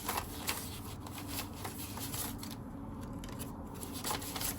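Paper banknotes being handled and counted out, a run of short rustles and flicks of bills.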